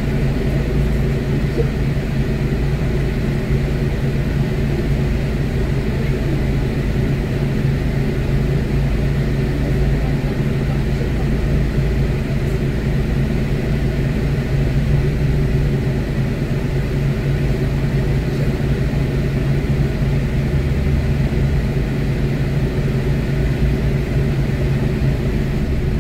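Volvo D8K six-cylinder diesel engine of an articulated Volvo B8RLEA city bus, running with a steady low drone, heard from inside the passenger cabin.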